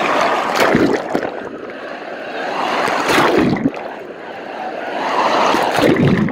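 Wave-pool surf: foamy whitewater rushing and splashing close to the microphone, swelling and falling away about every three seconds.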